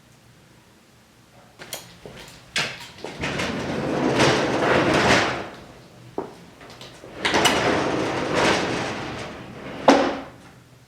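A few sharp knocks, then two long scraping slides of about two and a half seconds each with a click between them, and a single sharp knock near the end.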